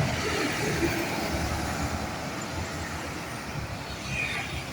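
Bus engine noise and passing traffic, a steady noisy rumble with no horn sounding.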